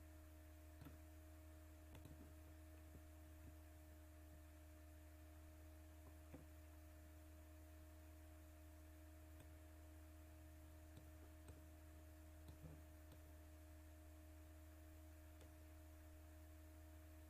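Near silence: a steady low electrical hum, with a few faint, scattered clicks.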